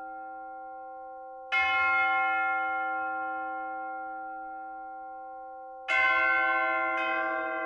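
Church bells ringing in slow single strokes. A stroke about a second and a half in and another near six seconds each ring on and slowly fade, and a different, lower bell is struck about seven seconds in.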